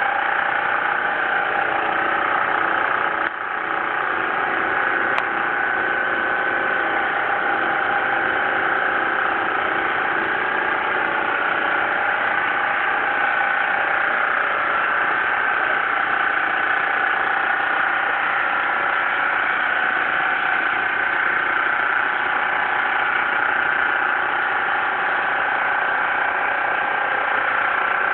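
Boat engine running steadily at a constant speed, with a drone that holds its pitch.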